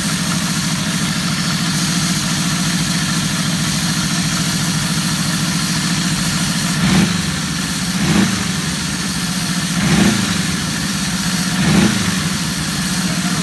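Matchless Silver Hawk's narrow-angle V4 engine idling steadily, then blipped four times in short revs in the second half.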